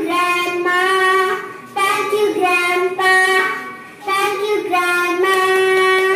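A young girl singing solo in a series of long held phrases, with short pauses for breath between them.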